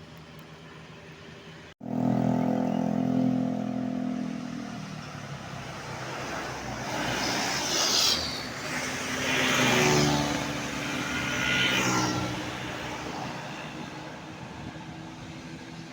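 Road traffic: a heavy engine drone starts abruptly about two seconds in, then three vehicles rush past one after another.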